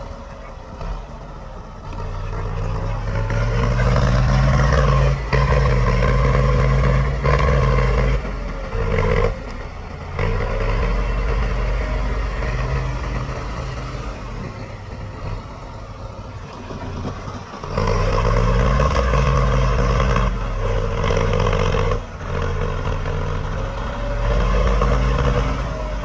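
Diesel engines of heavy earthmoving machines, a bulldozer and small dump trucks, running and revving up under load several times, then easing off again.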